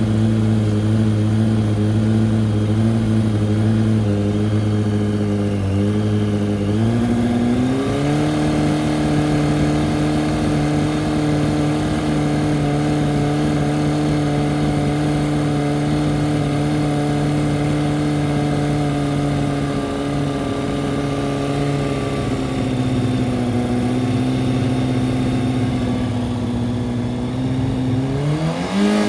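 Yamaha R1 inline-four sportbike engine running at a warm idle. The idle steps up about seven seconds in and holds steady, eases down a little past twenty seconds, and the revs begin to rise right at the end.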